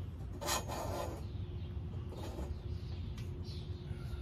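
Metal rasping and scraping as the bean tower's folding wire ring frame is slid along its metal pole, loudest about half a second in, with a few fainter scrapes later.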